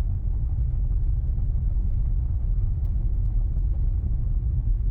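Steady low road rumble of a car being driven.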